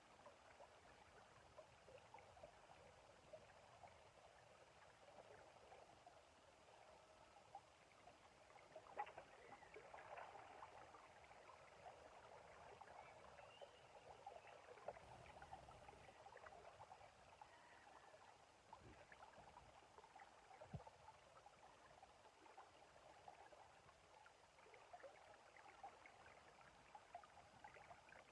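Faint river water flowing steadily, with many small ticks and splashes scattered through it.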